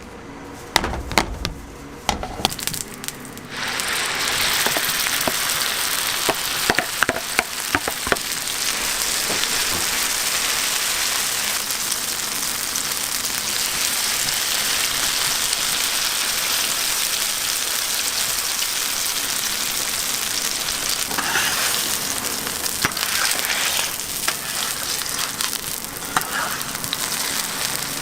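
Green onion pancake (pajeon) frying in oil on a hot griddle: a few sharp clacks, then a loud, steady sizzle that sets in about three seconds in and keeps going.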